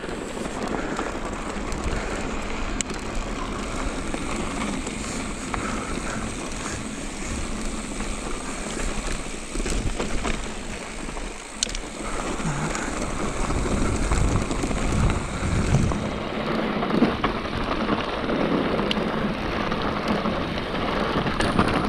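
Electric mountain bike rolling down a rocky dirt singletrack: tyre noise over dirt and stones, rumble of wind on the microphone, and a few sharp clicks and rattles from the bike.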